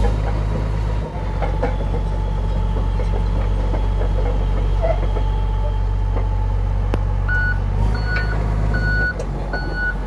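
Komatsu D85EX-15 bulldozer's six-cylinder turbo diesel engine running steadily. From about seven seconds in, a backup alarm starts sounding short beeps a little under a second apart, the sign that the dozer is in reverse.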